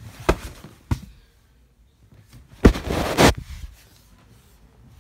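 Handling noise of a phone against bedding: two short knocks in the first second, then a loud scuffle of cloth about halfway through, lasting under a second.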